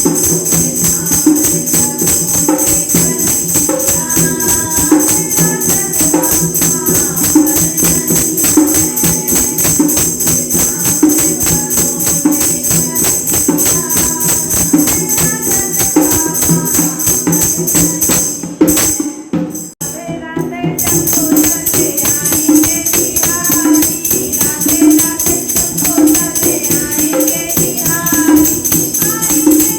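Women singing a Krishna bhajan to a steady, fast tambourine jingle. The music drops out briefly about two-thirds of the way through, then starts again.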